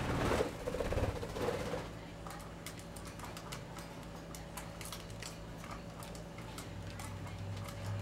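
Budgerigars bathing in a small plastic tub of water: a burst of splashing in the first couple of seconds, then a run of light, sharp clicks and taps as they dip and flick water, over a steady low hum.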